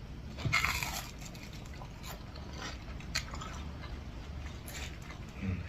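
A crunchy bite into crispy yam tempura about half a second in, followed by quieter chewing with a few scattered crunches.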